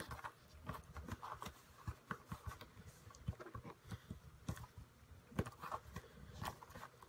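Fingers pressing and kneading a lump of soft thermoplastic moulding material made malleable in boiling water. The sound is faint: irregular small clicks and squishes.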